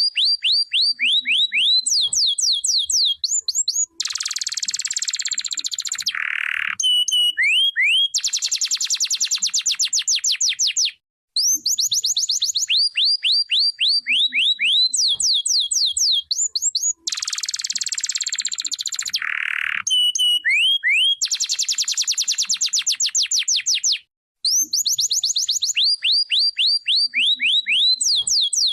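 Domestic canary singing a long, continuous song of rapid trills of falling notes alternating with fast buzzing rolls and short held tones. The same sequence of phrases repeats about every 13 seconds.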